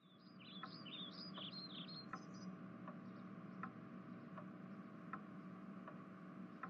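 Faint background ambience: a quick run of bird-like chirps in the first two seconds or so, and a steady tick about every three-quarters of a second, over a low hum.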